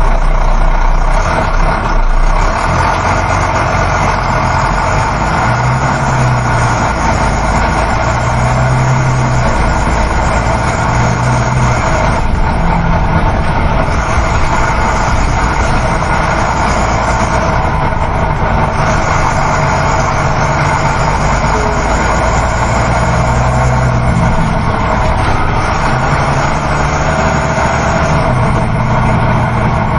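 Inside a moving coach bus: the steady drone of the engine mixed with road and tyre noise, the low engine hum swelling and easing every few seconds.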